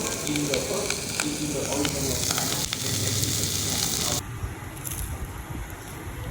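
Street food frying on a hot pan or griddle, a dense sizzle with scattered sharp clicks from utensils, which cuts off abruptly about four seconds in, leaving a quieter background.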